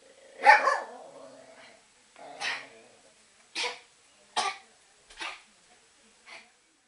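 A dog coughing in a fit: six harsh hacks about a second apart, the first the loudest with a short rasping tail, then fading away. These are the recurring coughing attacks that the owner puts down to nervous excitement.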